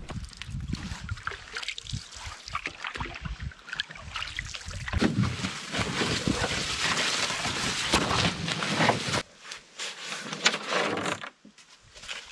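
Water sloshing and splashing around a canoe, with many scattered knocks. It is busiest through the middle and drops off sharply in the last few seconds.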